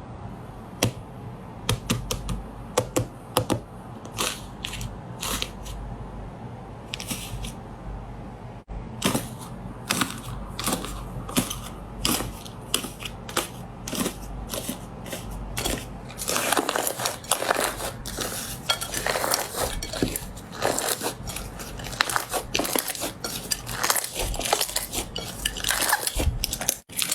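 Slime being pressed and squished by hand, giving irregular sticky clicks and crackling pops, sparse at first and growing dense through the middle.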